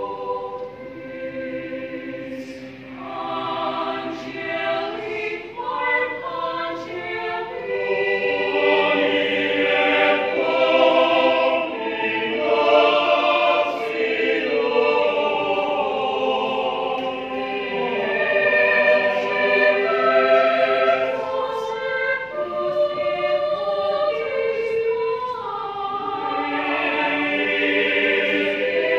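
Mixed choir of men's and women's voices singing a sacred choral piece in several parts, swelling louder about eight seconds in.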